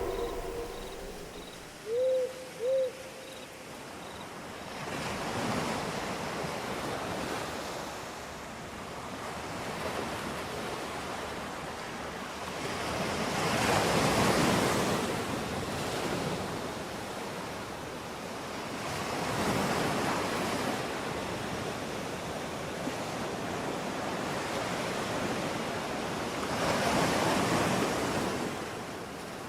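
Sea waves washing in and drawing back, in slow swells about every six to eight seconds. Two short chirps are heard about two seconds in.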